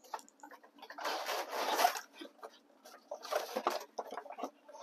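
Scraping, rustling and knocking as a steam generator is dragged out from under a table, in two longer scraping stretches with clicks and knocks between.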